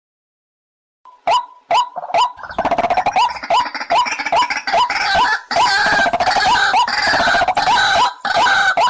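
White-breasted waterhen calling: a short croaking note repeated two to three times a second, which thickens into a dense run of overlapping calls from about two seconds in and thins back to single calls near the end. It starts after about a second of silence.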